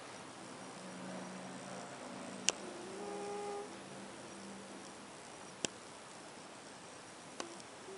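A sleeping cat snoring softly, its breaths carrying faint whistling tones. Three sharp clicks sound during the snoring.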